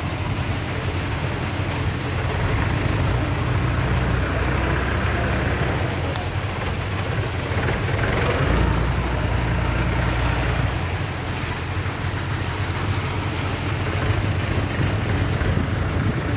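Mahindra 475 tractor's diesel engine running steadily, powering a paddy cleaning machine and elevator conveyor that loads paddy into a trailer. The engine's low hum shifts in strength a few times.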